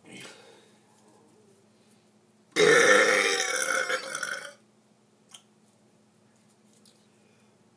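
A young man's deliberate, loud burp lasting about two seconds, starting about two and a half seconds in.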